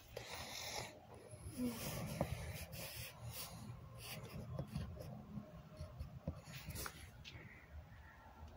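Faint, irregular rubbing and scraping with scattered small clicks: handling noise from a phone as it brushes against cloth and other surfaces.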